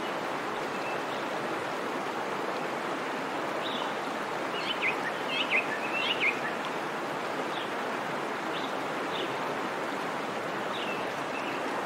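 Steady outdoor rushing noise, like running water, with short bird chirps over it: a quick cluster about five to six seconds in and a few scattered ones later.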